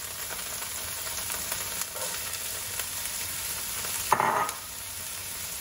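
Chopped onions sizzling steadily as they fry in oil and chorizo fat in a skillet, with a brief louder noise about four seconds in.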